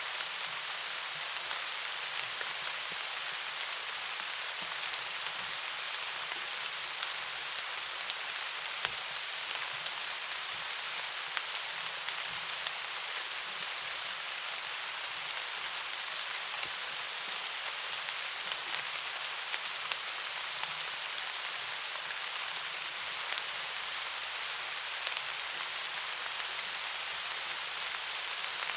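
Steady rain, a dense even hiss with scattered sharper taps.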